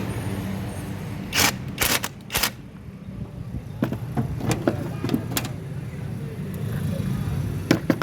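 Hand tools clicking and knocking against metal car parts during repair work, with three loud sharp knocks about a second and a half to two and a half seconds in and lighter irregular clicks after, over a steady low hum.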